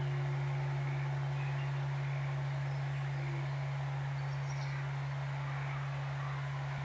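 Long low hum of a large Buddhist temple bell (bonshō) dying away slowly after a strike, with a fainter higher tone fading out. Faint bird chirps are heard over it.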